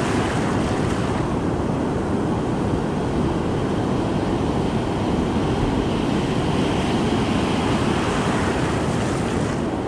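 Ocean surf washing and breaking around the wader close to the microphone: a steady, loud rushing of whitewater.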